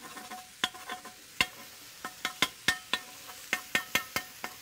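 Two metal spatulas chopping and scraping shaved beef on a hot flat-top griddle: about a dozen sharp, ringing clacks of steel on the griddle plate at an uneven pace, over a steady sizzle of the meat frying.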